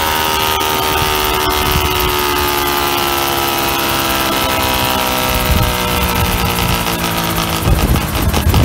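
Homemade coaxial helicopter's engine, fitted with tuned exhausts, running hard with its note slowly falling in pitch while both rotors spin. Near the end a heavier, gusty low rumble joins in.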